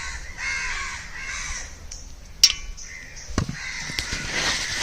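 Bird calling, with a run of about four pitched calls in the first two seconds. These are followed by a sharp click and, about a second later, a dull knock.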